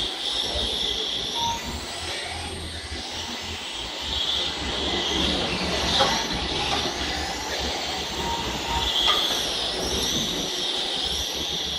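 Radio-controlled model trucks' electric motors whining as they race, the whine rising and falling in pitch over and over as they speed up and slow down.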